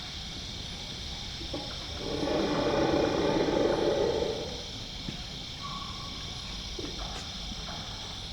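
Greater one-horned rhinoceros giving one loud, breathy call lasting about two and a half seconds, starting about two seconds in.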